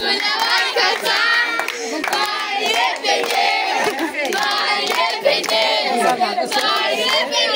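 A crowd of people singing together and clapping along, many voices overlapping with steady handclaps.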